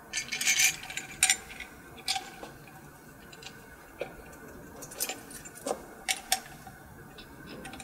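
Metal parts clinking and tapping as a throttle body and its spacer plate are handled and set against the supercharger's intake, a cluster of clatters near the start and scattered sharp taps after.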